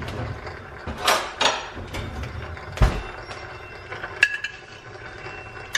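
Kitchen handling sounds as a glass sugar jar with a metal lid is picked up and opened: a couple of scraping knocks, a thud about three seconds in, and a sharp metallic clink with a brief ring a little after four seconds.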